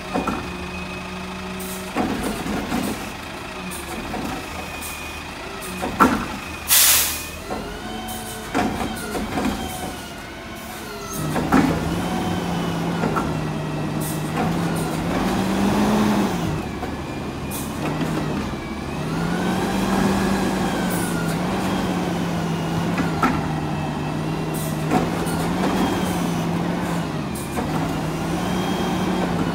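Mack garbage truck with a Curotto-Can working a yard-waste pickup: diesel engine idling under a series of clunks and knocks, with a sharp burst of air hiss about seven seconds in. From about eleven seconds the engine and hydraulics run louder, the pitch dipping and rising as the can is raised over the cab.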